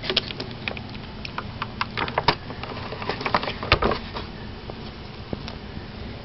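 Irregular clicks, taps and light knocks of hands and camera handling a plastic canister vacuum and its ribbed hose, thickest about two to four seconds in, over a faint low hum. The vacuum is not running.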